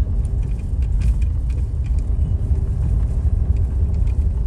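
Low road rumble inside a moving car, with light rattles and small knocks scattered through it.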